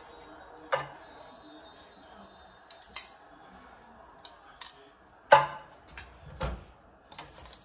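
Metal tongs clinking and scraping against a metal sheet pan and wire rack as roast pork shoulder is pulled apart: a few sharp, separate clinks, the loudest about five seconds in, followed by a low thump, over a faint steady hum.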